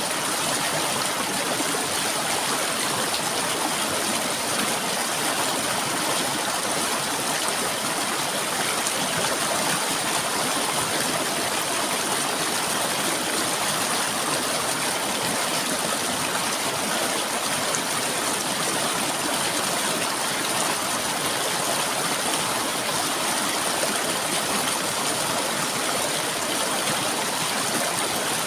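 River water flowing and gurgling in a steady, unbroken rush. Above it runs a constant thin, high-pitched shrill note.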